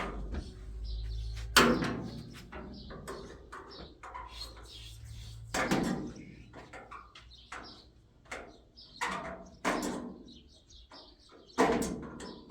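Irregular knocks and clattering impacts, a few loud ones with a short ring after them and smaller clicks in between.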